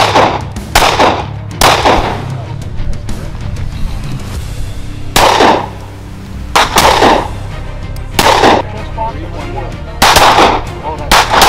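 Handgun shots fired one after another, singles and quick pairs every second or two, each with a short echo. Background music runs underneath.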